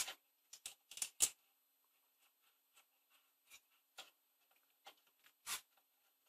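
Short, faint spray bursts from an aerosol can of contact cleaner squirted into the oscilloscope's sticky potentiometers to clean them: several quick puffs in the first second and a half, then one more about five and a half seconds in, with a few small taps between.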